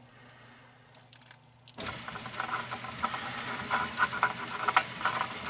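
Rock-Ola 496 jukebox mechanism being turned: a couple of faint clicks, then about two seconds in a steady rattling, clicking mechanical noise starts and keeps going.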